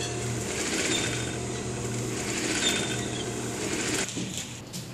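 Industrial sewing machine running steadily with a low hum; it stops about four seconds in.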